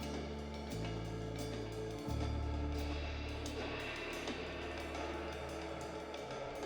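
Background music with a steady drum beat, hi-hat and sustained bass notes.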